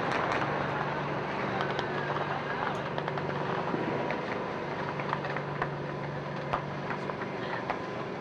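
Tracked armored vehicle's engine running with a steady low drone, with irregular sharp cracks scattered throughout.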